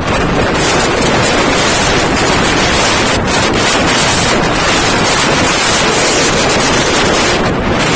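Strong typhoon wind buffeting the microphone as a loud, steady rush, over heavy surf from a storm-driven sea.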